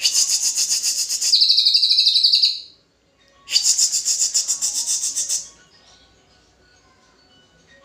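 Green leafbird (cucak hijau) singing: two bursts of very rapid, high-pitched chattering trills, each about two seconds long. The second starts about three and a half seconds in. After them only faint, thin notes remain.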